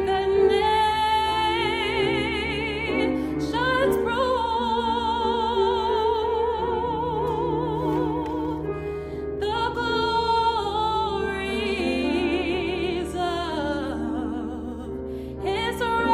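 A woman singing solo with a strong, wide vibrato, holding long notes in phrases with short breaks between them, over a steady accompaniment of held chords.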